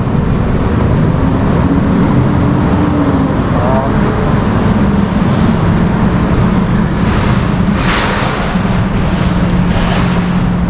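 Steady road traffic noise with a continuous low engine hum, swelling briefly a few times as vehicles go by.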